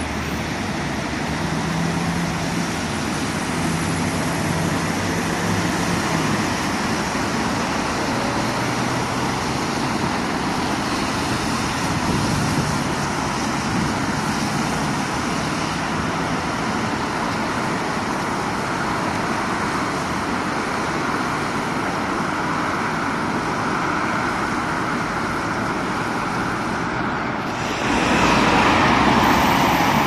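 Steady road traffic on wet roads, with a single-decker bus's engine humming in the first few seconds. Near the end the sound gets suddenly louder as cars swish past on wet tarmac.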